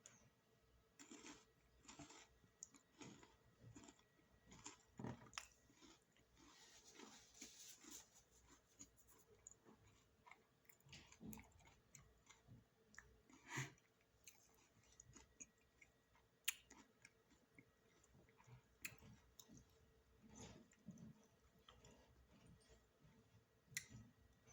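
A person quietly chewing snack food close to the microphone, with irregular soft crunches and mouth clicks.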